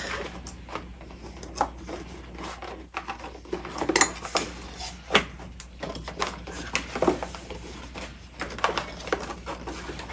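A cardboard product box being handled and opened by hand: irregular scraping and rustling of the cardboard with scattered light knocks and clicks.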